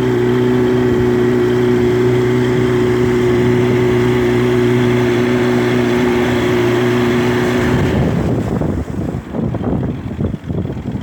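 Two-stroke outboard motor of a small boat running at a steady speed. About eight seconds in its steady tone drops away, leaving an uneven rushing, fluttering noise.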